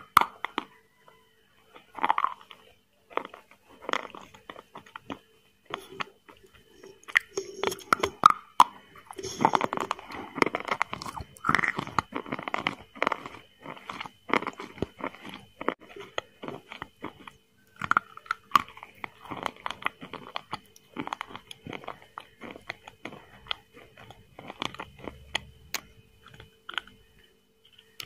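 Person eating chicken biryani by hand: a steady run of irregular chewing, biting and crunching sounds with mouth smacks.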